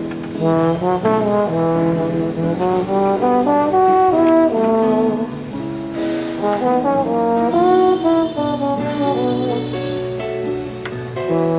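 Instrumental music led by brass instruments playing a moving melody over a steady beat.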